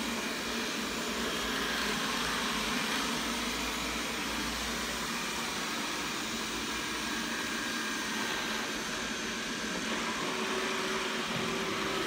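First-generation Xiaomi Mi robot vacuum running: a steady whir from its suction fan and brushes as it moves along the floor.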